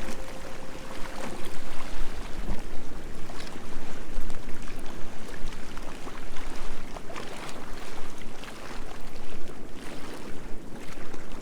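Sea waves washing onto a shore: a steady, surging rush of surf with small splashes and crackles.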